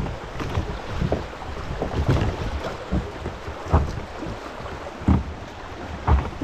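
Rushing water of a shallow river rapid, with wind buffeting the microphone in irregular low gusts.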